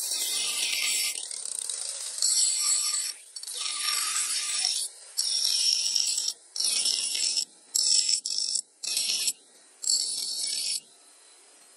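Bench grinder's abrasive wheel grinding the edge of a motorcycle drum brake shoe in about nine short passes, each a high, hissing rasp that breaks off as the shoe is lifted and turned. The grinding stops near the end.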